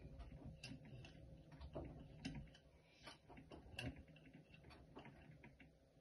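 Bosch front-loading washing machine in its wash cycle: faint, irregular clicks and knocks as the laundry tumbles in the turning drum, over a low rumble, trailing off near the end.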